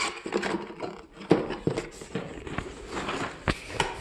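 Cardboard box of a Cooler Master Hyper 212X CPU cooler being opened and its contents handled: rustling packaging with a string of sharp knocks and clicks, the loudest about a second in and near the end.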